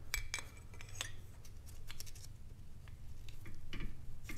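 Light, irregular clicks and scrapes of new sintered brake pads being slid and seated into a motorcycle's rear brake caliper by gloved hands.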